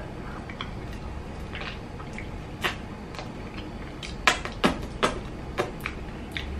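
Wet chewing and lip-smacking of a mouthful of soft, custardy durian flesh eaten by hand, with several sharp smacks in the second half.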